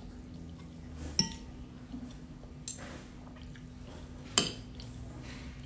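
Metal spoon clinking and scraping against a ceramic plate while eating, three sharp clinks, the loudest near the end.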